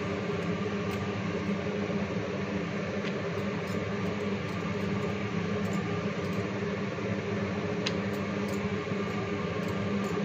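Steady electric motor hum, like a fan, holding several even tones throughout, with a few faint light clicks over it.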